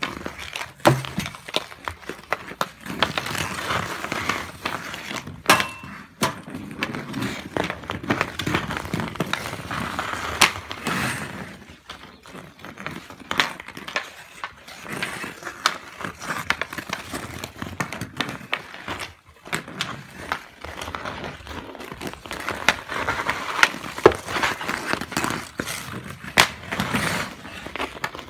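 Ice skate blades scraping and carving on rink ice, with many sharp clacks of a hockey stick striking a puck and the ice during stickhandling and shots.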